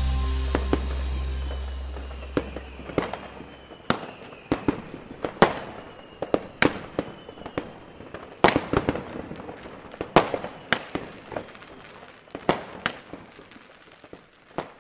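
Fireworks going off: a string of sharp bangs and pops at uneven intervals, some in quick clusters, with crackling in between, stopping suddenly near the end. At the start, the last note of a song fades out.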